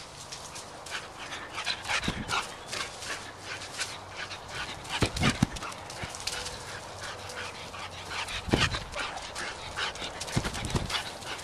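Boxer dog running hard on grass: a quick, irregular patter and scuffing of feet, with a few dull thumps.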